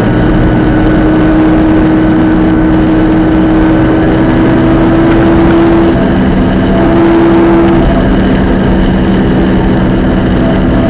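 Subaru Impreza GC8 drivetrain running with a steady whine that breaks off and returns a few times over the engine noise: the abnormal center differential noise the owner is recording.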